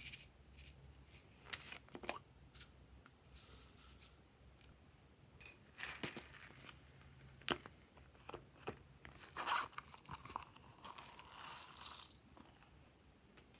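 Small handling sounds of slime ingredients being opened and added: sharp plastic clicks and taps and short crinkling rustles of packaging, with a longer rustle about eleven seconds in.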